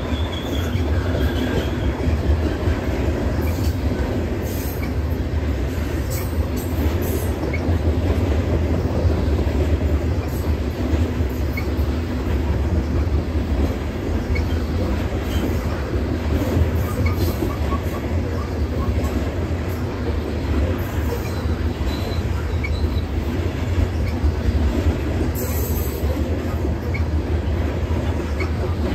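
Covered hopper cars of a freight train rolling over a railway girder bridge: a steady low rumble of wheels on rail and bridge deck, with faint high wheel squeals now and then.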